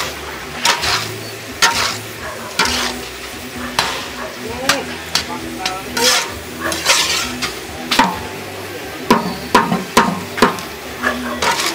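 A spatula stirring and scraping food in a hot pan, with frying sizzle underneath. The strokes come about once a second and quicken near the end.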